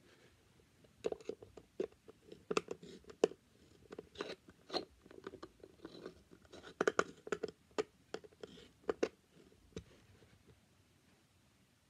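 Irregular clicks and short scrapes of a stainless steel sink drain being handled against a clear plastic box and its centre screw being turned with a screwdriver. They start about a second in and die away near the end.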